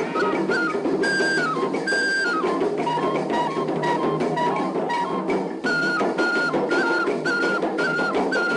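Live traditional northern Ghanaian drumming for a dance troupe: a dense, steady drum rhythm with a high melodic figure repeating two or three times a second. The figure glides down in pitch about a second in, holds lower through the middle, and returns to its higher pitch near the end.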